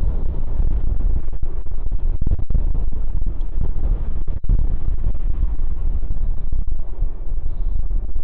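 Strong wind buffeting a phone microphone: a loud, low, distorted rumble with brief dropouts.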